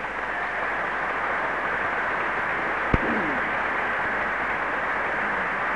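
Large audience applauding, a steady, even clatter that interrupts the speech, with one sharp click about three seconds in.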